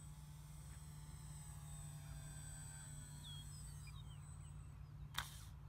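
Faint, steady hum and high whine of a small RC plane's electric motor and propeller flying at a distance, its pitch drifting slowly as the plane moves, with a few bird chirps. A sharp click about five seconds in.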